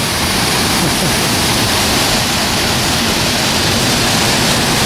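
Waterfall rushing close by, a loud, steady roar of falling water that drowns out speech.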